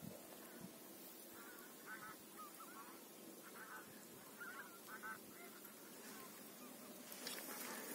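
Wild geese honking faintly in the distance, with short calls coming every half second or so. A brief rustling noise comes near the end.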